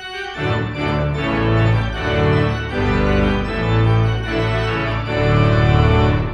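Organ music: sustained chords that start suddenly and change about once a second.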